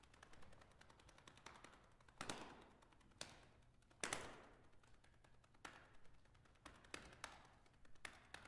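Sparse, irregular clicks and light taps from a solo percussion and electronics piece, with a few louder struck hits that ring out briefly, the loudest about four seconds in.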